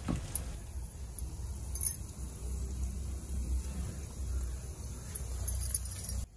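Gulab jamun balls deep-frying in a pan of hot oil: a faint steady bubbling hiss with a few short, sharp clinks, over a low steady rumble.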